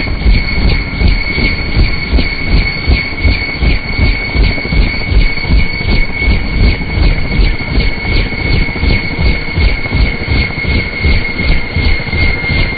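Bell 212 helicopter running on the ground with its rotor turning: a steady high turbine whine over a rapid, even beat of the rotor blades.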